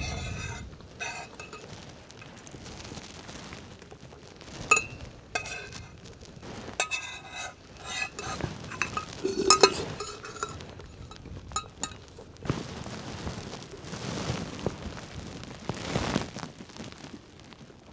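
A spoon clinking against a soup container while eating, a scattered series of light ringing clinks.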